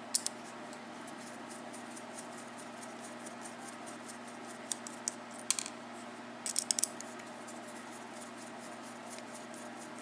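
Small metal lock parts clicking as a pin-tumbler mortice cylinder is handled and taken apart, with light ticks throughout and a few clusters of sharp clicks around five seconds in and just before seven seconds, over a faint steady hum.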